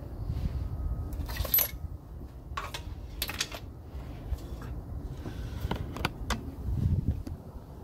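A few sharp metal clinks and knocks over a low rumble, from handling the removed rear differential and the floor jack it rests on.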